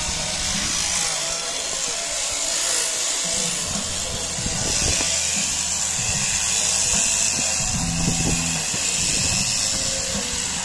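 Electric sheep-shearing handpiece on a hanging down-tube drive running steadily, its cutter buzzing against the comb as it shears through the fleece.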